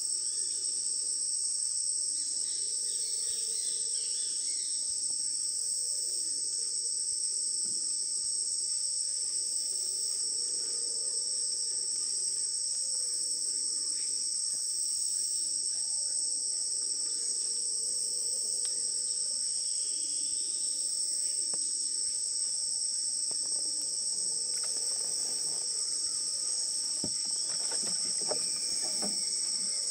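Steady, unbroken high-pitched chorus of tropical forest insects. A few faint knocks come near the end.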